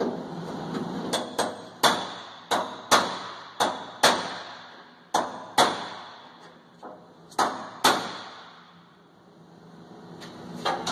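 Hammer blows on sheet-metal car bodywork: about a dozen sharp, ringing strikes at an uneven pace, then a pause and two more strikes near the end.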